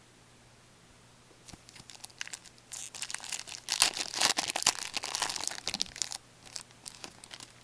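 A hockey card pack wrapper being torn open and crinkled by gloved hands. The crackling starts about a second and a half in, is thickest in the middle and thins out near the end.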